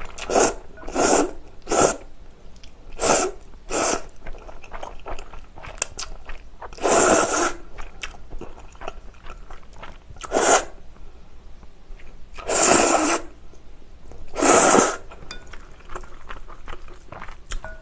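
A person slurping chewy cold jjolmyeon noodles, close-miked: a quick run of short slurps in the first few seconds, then longer single slurps every couple of seconds, with chewing between.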